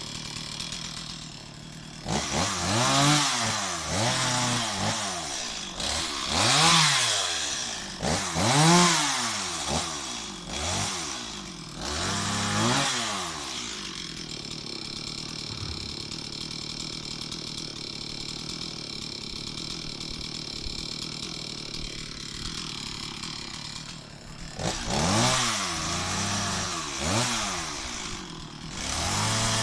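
Stihl MS 260 two-stroke chainsaw blipped up and down about five times, then idling steadily for about ten seconds, then revved again near the end.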